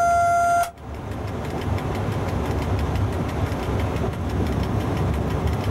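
The E.656 electric locomotive's horn holds one steady note and cuts off suddenly under a second in. The locomotive's steady running rumble then carries on, heard from inside the cab as it runs along the track.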